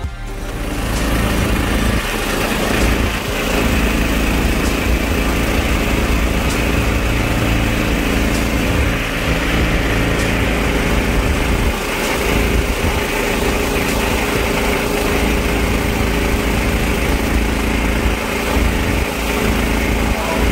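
Mudskipper longtail mud motor, a 16 hp 420cc single-cylinder four-stroke, running steadily and pushing the jon boat along the river. It comes up to full loudness within the first couple of seconds.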